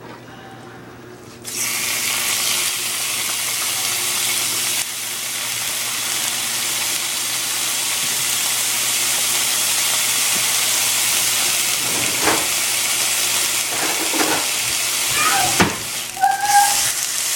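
Pieces of raw chicken breast hitting a pot of hot coconut oil and sizzling, starting suddenly about a second and a half in and running on steadily. A few short utensil knocks near the end.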